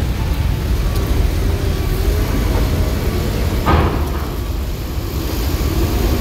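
Bus diesel engines running with a steady low rumble in heavy rain, with a short burst of noise a little past halfway.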